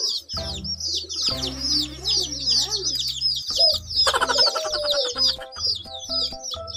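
A flock of young chicks peeping all at once, a fast, unbroken stream of high, falling chirps, over background music.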